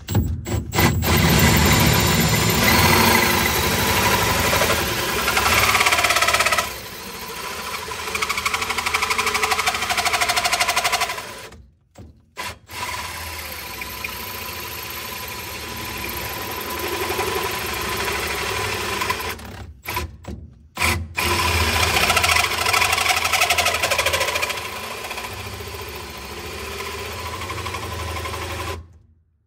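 Power drill running a dull hole saw through a powder-coated panel, starting from a pre-drilled pilot hole. The cutting stops briefly twice, about 12 and 20 seconds in, then starts again.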